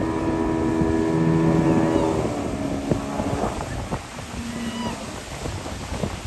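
Motorboat engine running at a steady pitch, cutting back about two seconds in, followed by wind and water noise with a few knocks.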